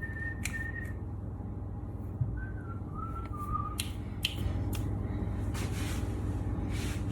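A few short whistled notes stepping down in pitch, the first held for about a second, then two shorter ones around two and three seconds in. Under them runs a steady low hum, with a few light clicks.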